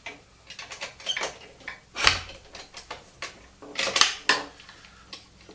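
Handling clatter of a wooden drill press fence and board being loosened and slid on the table: a run of light clicks and taps, a solid knock about two seconds in, and another cluster of knocks about four seconds in.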